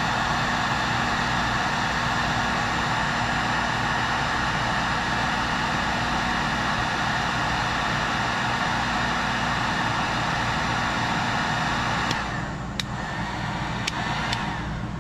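Electric heat gun blowing steadily on a solder seal wire connector, heating it to melt the solder ring and shrink the sleeve. It cuts off about twelve seconds in, followed by a few light clicks.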